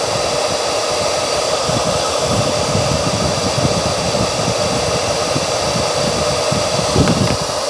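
BERTA 1875 W ionic hair dryer running steadily, an even loud rush of blown air with a steady motor whine in it, putting out air at close to 400 °F.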